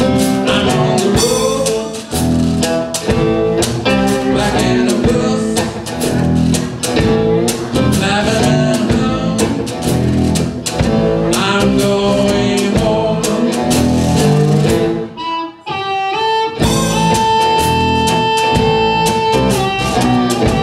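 Blues band playing live: drums and a cigar box guitar in an instrumental stretch with a steady beat. The band drops out briefly about three-quarters of the way through, then comes back with a harmonica played into the vocal mic, holding long steady notes.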